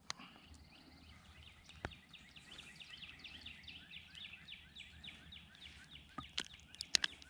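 Rapid, even series of short descending chirps from an animal, about four a second, with a few sharp clicks and knocks, the loudest near the end.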